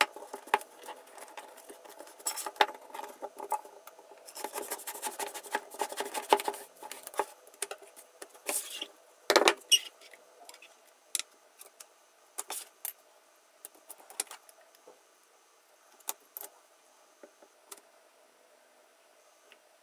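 Scattered metallic clinks and short scraping strokes of a kitchen knife and sharpening equipment being handled. The scraping is busiest in the first several seconds. A louder knock comes about nine seconds in, followed by sparse light clicks.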